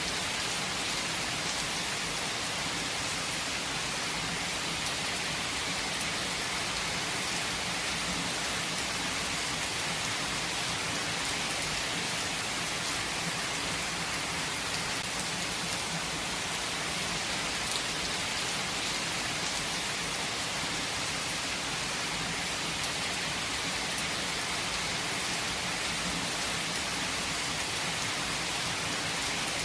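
Steady rainfall, an even hiss of drops landing on surfaces with faint scattered ticks of single drops, unchanging in strength.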